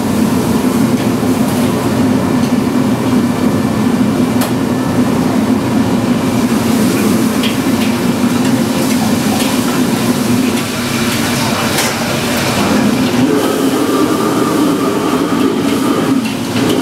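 Commercial wok range in a Chinese kitchen running with a loud, steady roar of gas burners and extraction, with a few sharp metal clanks of a ladle against a wok.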